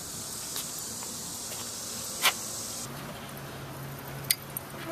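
Freshly lit lump charcoal in a kamado grill hissing steadily around a glowing electric charcoal starter just after the coals are stirred, with a single sharp click a little after two seconds in. The hiss cuts off suddenly near three seconds, leaving a low steady hum.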